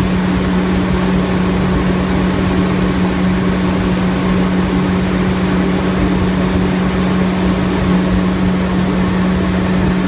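Electric motor of glass-cutting equipment running steadily: a constant hum under a broad hiss.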